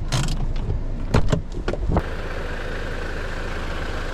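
A running 2016 Jeep Patriot heard from close by: a few sharp clicks and knocks in the first two seconds, then an abrupt switch to a steady, even hum of the running car.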